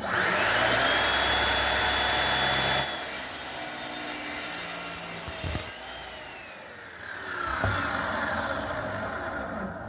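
Craftsman cordless miter saw starting up and cutting through a piece of wood. Near the middle the sound drops and the blade spins down, its pitch falling.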